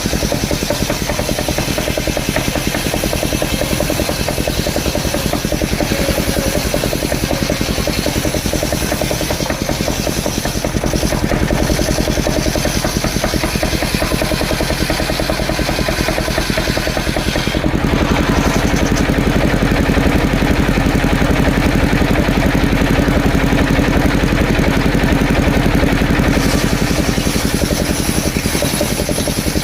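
Engine-driven wood saw running steadily at a constant speed. About 18 seconds in, the sound shifts abruptly to a stronger, lower hum.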